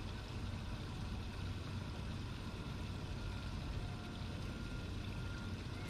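Steady low rumble with a faint hiss over it and no distinct events: the background noise of open air on a small boat.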